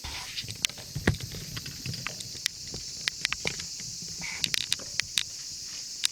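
Background noise: a steady high hiss with many scattered sharp clicks and a low rumble underneath.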